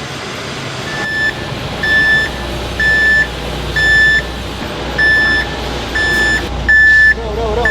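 A vehicle's reversing alarm beeping steadily, one high single-pitch beep about every second, starting about a second in, over a steady hum of machinery.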